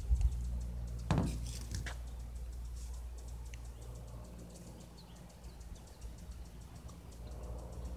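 Handling noise from a phone held up to film: a rustle about a second in and faint clicks, over a low steady hum.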